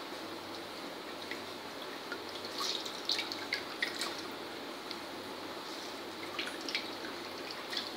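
Handfuls of grated potato lifted out of a dish of water and squeezed by hand, the water dripping and splashing back into the dish. The splashes come in a cluster about two to four seconds in and again near the end.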